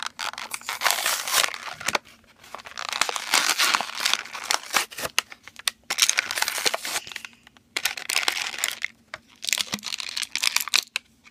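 Toy packaging crinkling and tearing as a figure is unwrapped, in several bouts of rustling with short pauses between.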